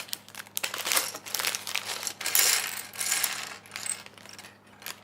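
Small plastic LEGO pieces clattering out of an opened plastic parts bag onto a hard surface, with the bag crinkling; the clicks thin out to a few faint ones near the end.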